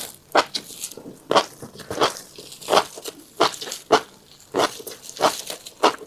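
Close-miked chewing and crunching of a mouthful of tiny black seeds: sharp, irregular crunches at roughly two a second.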